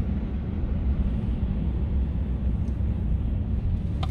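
Steady low rumble of a car in motion, heard from inside the cabin: road and engine noise with no distinct events.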